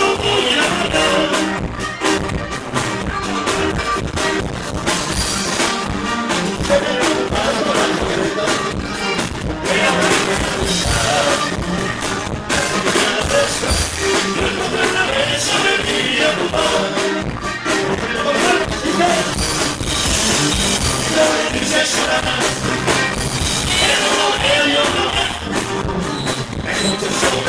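Live rock band playing with a singer, loud and continuous with a steady beat.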